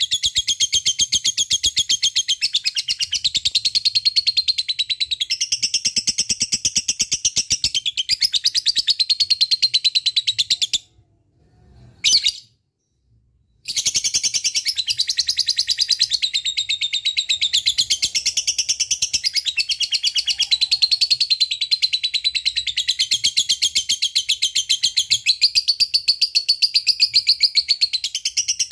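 Lovebird giving its long 'ngekek' chatter, a rapid, unbroken trill of high repeated notes. It breaks off for about three seconds a little over a third of the way in, with one short chirp in the gap, then starts again.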